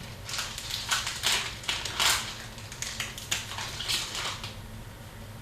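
Hockey trading cards and their foil pack wrappers being handled: quick irregular rustling and crinkling, which thins out near the end.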